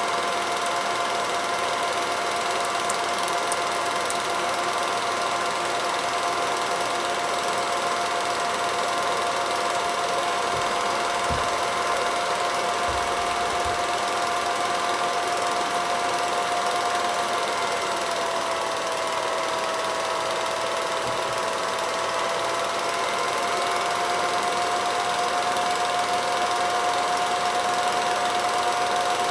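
Film projector running: a steady mechanical whir with a constant tone that sags slightly in pitch about two-thirds of the way through and then comes back up.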